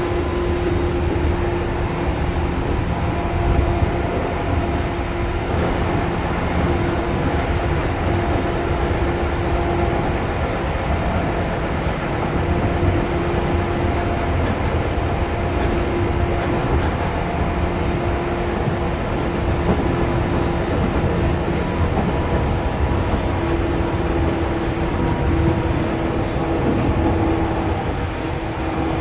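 Seibu 2000 series electric train running, heard from inside the car: a steady low rumble of wheels and running gear, with a humming tone that fades in and out every few seconds.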